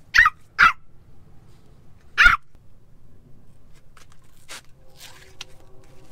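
Yorkie puppy yapping: three short, high barks, two in quick succession and a third about two seconds in.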